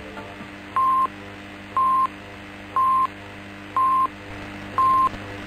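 Kol Israel radio's hourly time signal: five short, identical high pips one second apart, counting down to the top of the hour before the news.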